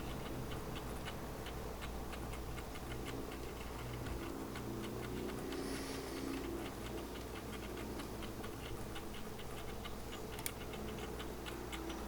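A clock ticking steadily, several ticks a second, over a low steady hum of room tone.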